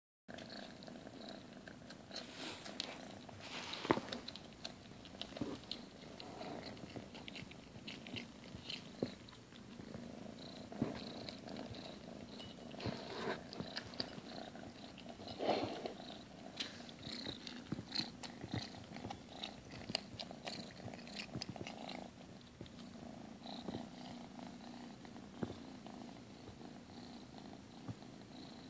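Calico kitten crunching dry kibble from a glass bowl, with many short crunches and clicks over a steady purr.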